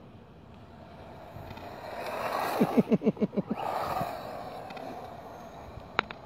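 Small electric RC drift car passing close over wet, gritty asphalt: a swell of tyre and motor noise that builds, peaks and fades, with a rapid run of short pulsing tones at its loudest. Two sharp clicks come near the end.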